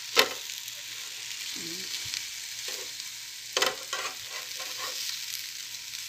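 Chicken breasts sizzling on an electric grill plate, a steady high hiss. Sharp clicks and scrapes of a metal spatula on the grill as the pieces are moved: the loudest comes just after the start, and a cluster follows about three and a half seconds in.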